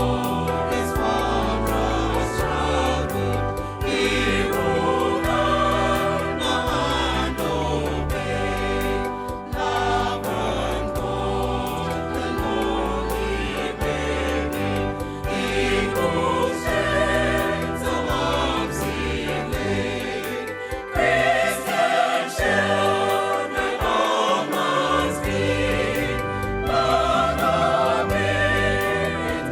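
A choir singing a gospel song over bass and a steady percussion beat.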